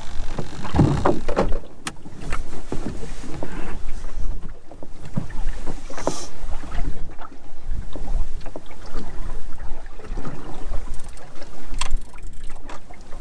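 Water slapping against the hull of a small open boat drifting at sea, with wind buffeting the microphone. Now and then there is a sharp knock against the boat.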